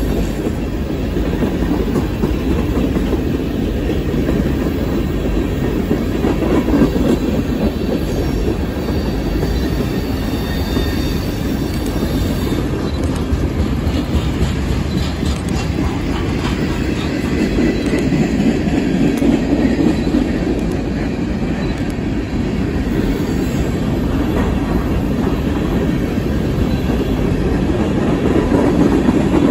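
Herzog ballast hopper cars of a freight train rolling past: a steady rumble of steel wheels on the rails with clicking from the wheels, and a faint high wheel squeal for a few seconds partway through.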